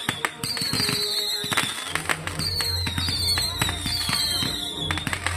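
Consumer fireworks going off in rapid succession: many sharp pops and crackles, with several whistles that each fall slightly in pitch. Music with a low steady bass comes in about two seconds in.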